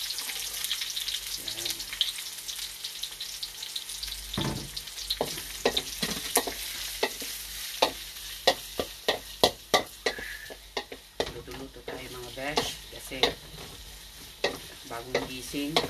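Garlic and onion sizzling in hot oil in a metal pan, stirred with a wooden spatula that knocks and scrapes against the pan many times.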